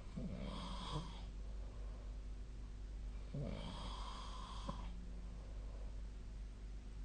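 A sleeping person snoring: two snores about three seconds apart, the second longer than the first.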